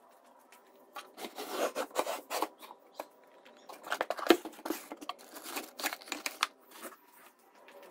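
Hands rummaging through flattened cardboard, plastic bags and packed items in a storage space: irregular bursts of rustling and scraping with a sharp knock about four seconds in.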